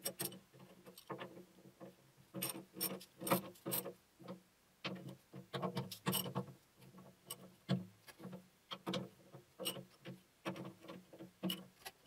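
Socket ratchet clicking in short irregular runs as it tightens bolts snug down into a motor mount.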